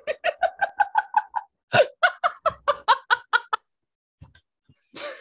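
Laughter: quick, evenly repeated "ha-ha" pulses in two runs, stopping about three and a half seconds in, followed by a short breathy burst near the end.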